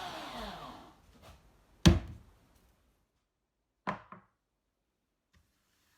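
A fading sound that falls in pitch, then one loud knock about two seconds in and two lighter knocks close together about four seconds in.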